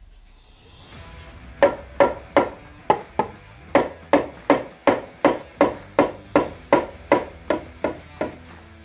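Hammer striking a timber roof rafter repeatedly, about eighteen sharp even blows at roughly three a second, as when driving a nail home to fix the rafter in place.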